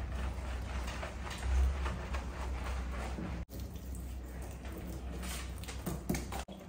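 Hands scrubbing shampoo lather into a wet basset hound's coat in a stainless steel grooming tub: wet squishing and dripping, over a steady low hum.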